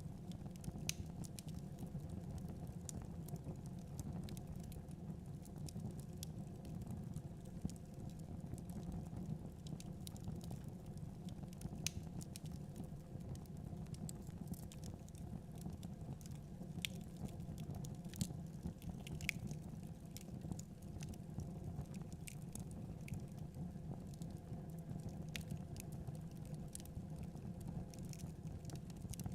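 Wood fire burning in a fireplace: irregular sharp crackles and pops from the logs over a steady low rush of the flames.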